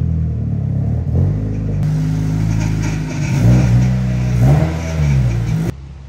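Mitsubishi Lancer Evolution's turbocharged four-cylinder engine revving in a series of blips, its pitch rising and falling several times. It cuts off suddenly near the end.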